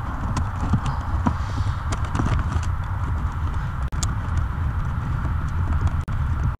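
Hands handling plastic trim and a cable under a car dashboard: irregular light clicks and knocks over a steady low hum.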